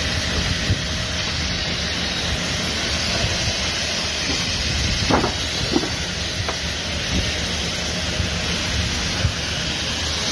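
Steady loud hissing rush of firefighting water spray on a burning building, with steam and fire noise, and a few short knocks about halfway through.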